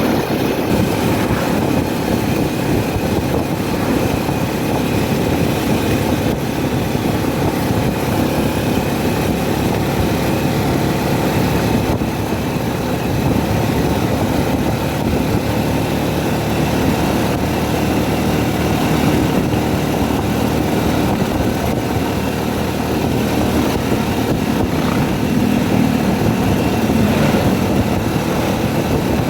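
Steady engine and road noise of a vehicle on the move, a low rumble that holds even throughout.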